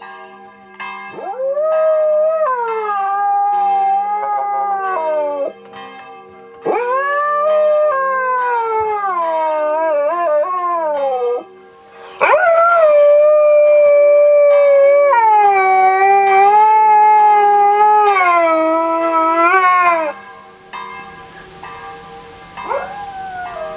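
A dog howling along with a ringing church bell: four long howls, each swooping up at the start, then held and wavering before falling away. The bell's tones hang steadily underneath.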